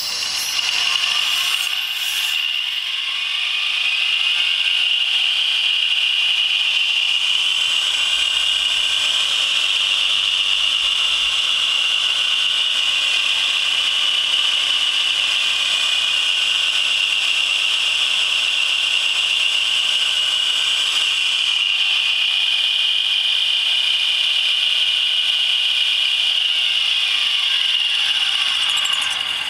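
Dynamic balancing machine spinning a BMW R100GS clutch assembly. It winds up over the first few seconds, runs at steady speed with a high whine, then spins down near the end. This is a check run after the balance has been adjusted.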